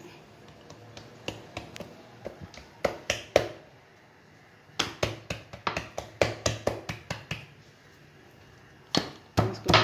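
Fingers and palms patting and pressing potato-stuffed paratha dough flat on a wooden board: runs of quick sharp taps, several a second, in a few bursts with short pauses between.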